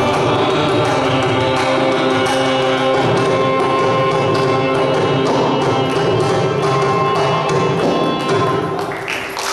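Carnatic vocal music, a singer with violin and mridangam, with held melodic notes over steady mridangam strokes as the piece draws to its close. The music stops about nine seconds in and applause starts right at the end.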